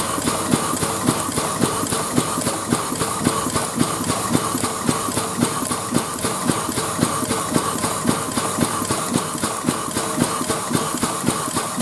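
Steam locomotive's steam-driven air pump working, with a steady beat of about two strokes a second over a constant steam hiss, as it compresses air for a jackhammer.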